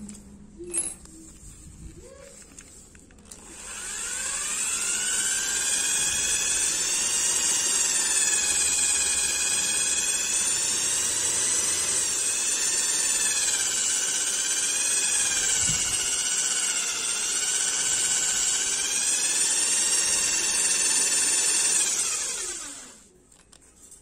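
Power drill spinning a wooden tobacco pipe for polishing: a sharp click about a second in, then the motor speeds up with a rising whine, runs steadily for most of the time with the pitch wavering slightly, and winds down with a falling whine near the end.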